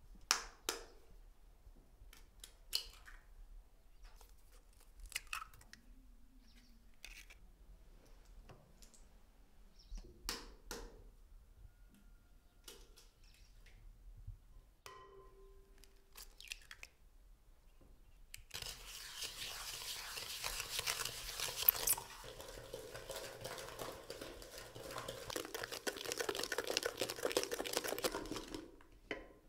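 Eggs being cracked against a glass mixing bowl, a scattering of sharp taps and clicks. Past the middle, the eggs are beaten briskly in the bowl: a steady, rapid scraping clatter of the utensil against the glass, the loudest part.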